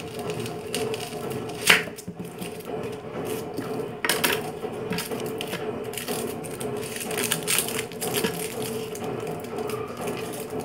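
Kitchen knife cutting an onion on a wooden cutting board: irregular crunching cuts and clicks, with a sharp knock of the blade on the board just under two seconds in.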